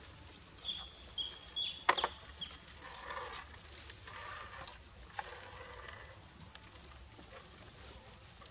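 Young macaques giving short, high squeaks while they feed. There is a sharp knock about two seconds in, and softer scuffling after it.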